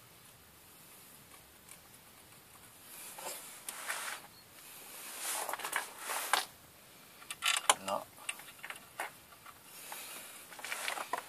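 Bolts being fitted by hand into a clutch pressure plate and flywheel: scattered metal scrapes and clicks, with a sharp cluster of clicks about eight seconds in.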